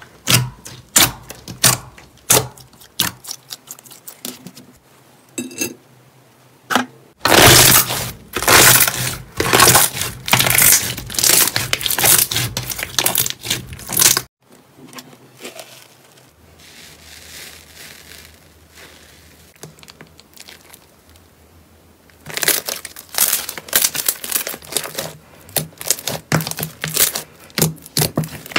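Hands pressing, poking and folding glossy slime, making sticky clicking pops and crackling. The crackling grows dense and loud a quarter of the way in and cuts off abruptly about halfway. After a quieter stretch, the rapid popping comes back near the end.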